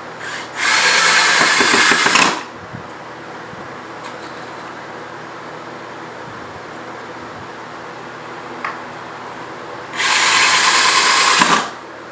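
Power drill run in two bursts of about one and a half to two seconds each, the first just after the start and the second near the end, working into pallet wood.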